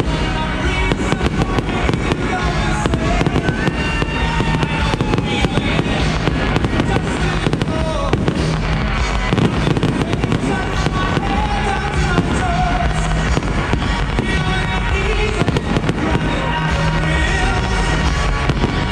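Fireworks display going off continuously, a dense run of aerial shell bangs one after another, with music playing along throughout.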